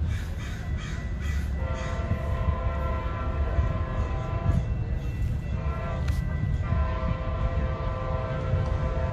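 An approaching passenger locomotive's multi-tone air horn sounds a long blast, a short blast, then another long blast, over the low rumble of the train. Crows caw a few times in the first second or so.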